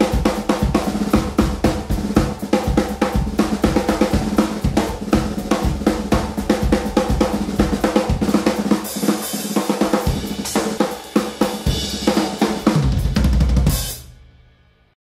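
Drum-kit-led music soundtrack: fast, busy playing on snare, bass drum, cymbals and hi-hat. It swells, then fades out near the end.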